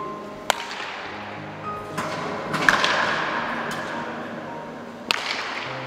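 Sharp cracks of a wooden bat hitting baseballs, one about half a second in and another near the end, with a few lighter knocks between, over background music.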